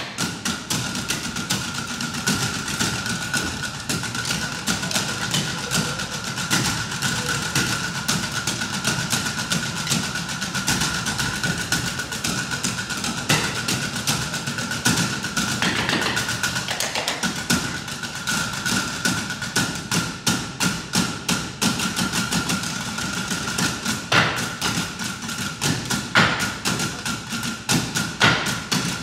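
A percussion ensemble drumming with sticks on wooden bar stools, a fast, continuous rhythm of wooden taps and clacks, with several louder accented hits near the end.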